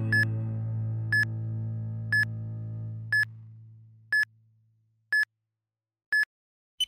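Electronic timer beeps, one short identical beep each second, seven in all, then a single higher-pitched beep at the very end, like a countdown reaching zero. Under the first beeps, a held low music chord fades out over about five seconds.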